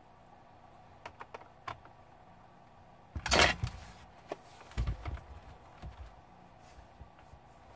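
Small hard objects being handled: a few light clicks and taps, a brief loud clatter about three seconds in, then a couple of dull thumps and scattered small ticks.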